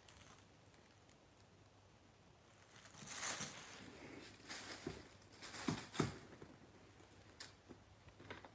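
A kitten playing at a plastic bag on a wooden floor: faint, irregular rustling and a few light taps, starting about three seconds in.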